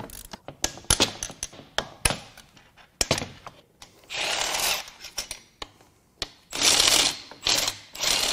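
Cordless power tool running in short bursts of about half a second to a second, backing out the long tail-housing bolts of a Mazda Miata 5-speed manual transmission. Scattered light metal clicks and knocks come before the first burst, about four seconds in.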